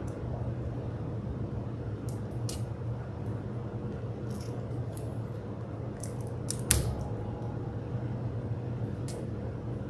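Sticky tape pulled from a desk dispenser and torn off, then pressed down onto plastic wrap: a few short scattered clicks and snaps over a steady low hum, the sharpest about two-thirds of the way through.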